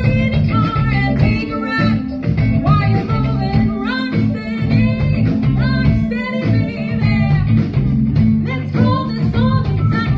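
Live band playing, a woman singing lead over guitars and drums.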